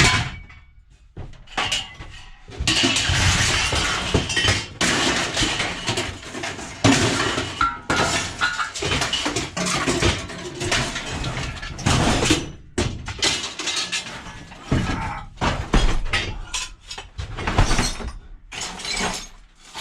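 Loose pieces of scrap metal clattering and clinking together as they are handled, with irregular rattling bursts and short pauses.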